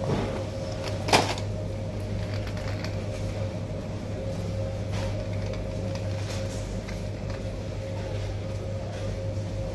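Steady low machine hum of supermarket refrigeration and air handling, with a brief loud rustle of handling about a second in as the plastic snack bag and phone are moved.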